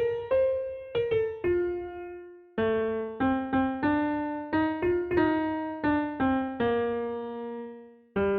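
Background music: a piano or electric-piano melody of struck notes that fade out, with a short pause about two seconds in.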